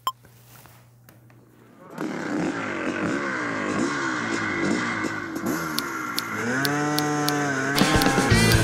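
Motocross motorcycle engines revving from about two seconds in, the throttle blipped up and down again and again, then held high and rising near the end as background music comes in.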